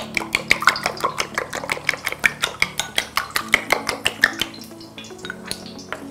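Raw eggs being beaten in a small ceramic bowl, the utensil clicking rapidly against the bowl about five or six times a second; the beating slows and stops about four and a half seconds in. Soft background music plays underneath.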